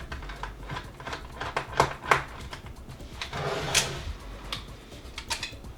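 Irregular clicks and knocks of things being handled, with a brief rustle about three and a half seconds in.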